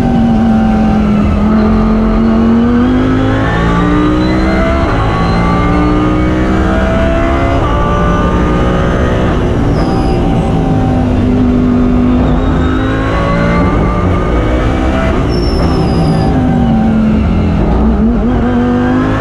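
Lamborghini Huracán GT3's V10 heard from inside the cockpit at racing speed. It runs low through a corner, then revs up through the gears in rising climbs. It drops back on lifts and downshifts about halfway through and again a few seconds later.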